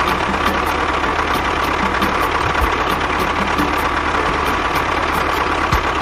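Small motor of a DIY model tractor or bulldozer running steadily, with a fast regular ticking of about four to five a second.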